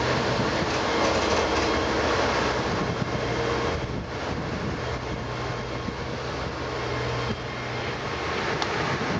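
Plasser & Theurer 08-32 Unimat 4S track tamping machine running and rolling slowly along the rails, its diesel engine giving a steady low hum over mechanical rattle. The sound becomes somewhat quieter about four seconds in.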